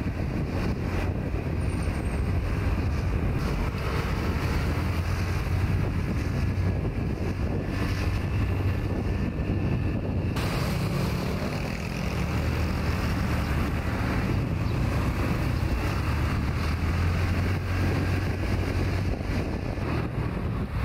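Steady low engine drone of a vehicle with a rushing, wind-like noise over it.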